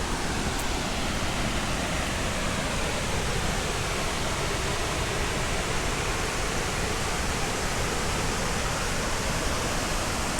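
Waterfall rushing steadily below, an even, unbroken wash of falling water.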